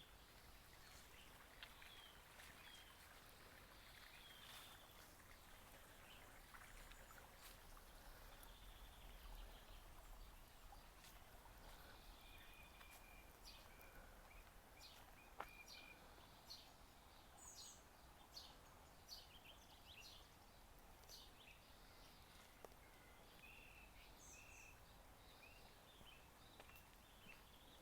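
Faint bird ambience: scattered short chirps and calls from small birds over a soft steady hiss.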